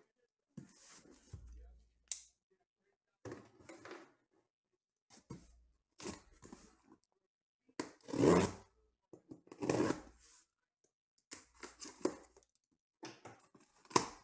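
A dull knife blade slitting the packing tape along the seam of a cardboard case, in about ten short scraping strokes with rustles of cardboard, the strongest past the middle and a sharp click about two seconds in. The blade is blunt, "just like a butter knife".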